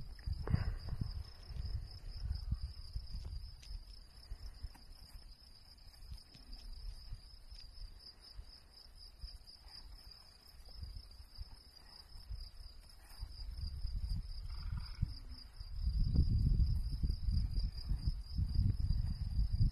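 Wind buffeting the phone's microphone in low, irregular gusts, much stronger in the last few seconds. A steady, finely pulsing high-pitched trill runs underneath throughout.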